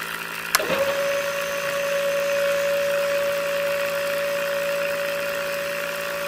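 Small DC motors whining steadily on a toy drilling rig. A switch clicks about half a second in and the mini water pump motor starts, its tone rising quickly and then holding level alongside the other motor.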